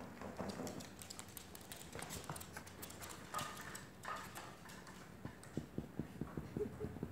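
A Shih Tzu puppy pawing and mouthing a plastic water bottle on a hardwood floor: scattered light clicks and crinkles of the plastic, and a quick run of light taps near the end as the bottle and the puppy's claws knock on the floor.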